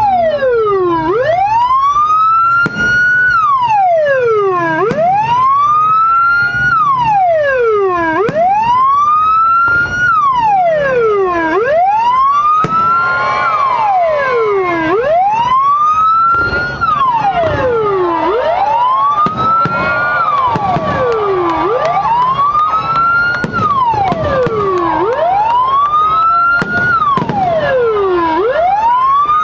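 Aftermarket police-escort siren module (9–12 tone) sounding through a TOA 10–15 watt horn speaker in its wail tone: the pitch climbs slowly for about two seconds, falls back quicker, and repeats about every three and a half seconds. A second, steadier tone joins in the middle.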